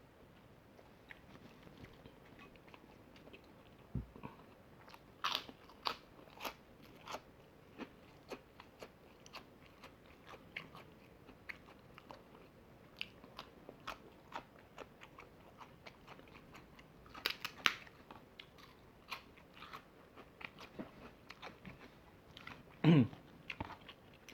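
Close-up mouth sounds of eating fried chicken: bites, crunches and chewing, as scattered short clicks that come in clusters, with one louder, lower sound near the end.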